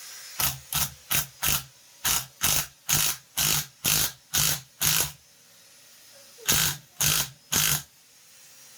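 Power tool run in short bursts, about two a second, with a pause of about a second and a half in the middle, driving a homemade bearing puller that is pulling a friction-fit carrier bearing off a Dana 35 rear differential.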